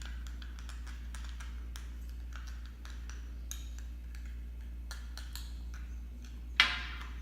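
Spoon stirring a thick mixture of glitter glue and toothpaste in a container: soft irregular clicks and taps, with one sharper knock about six and a half seconds in, over a steady low hum.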